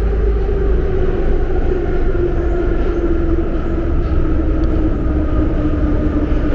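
Metro train heard from inside the passenger car: a steady rumble of wheels on rail with a motor whine that slowly falls in pitch as the train slows toward a station.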